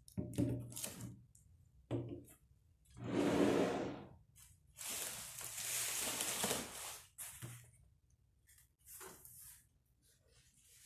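Packing material rustling in a cardboard box as items are pulled out, in a few long spells of hiss. A few short knocks come first, from glass jars being set down on a wooden table.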